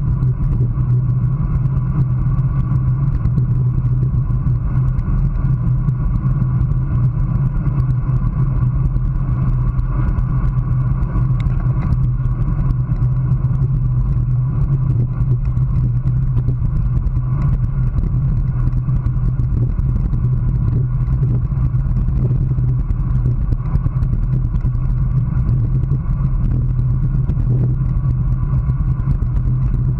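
Steady wind rush and road rumble picked up by a GoPro on a road bike riding at about 20 mph, a constant low drone with no breaks.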